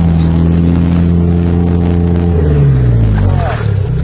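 Off-road truck's engine pulling steadily while wading through a river, then the revs drop about two and a half seconds in, sink lowest near the end, and start to climb again as the throttle comes back on.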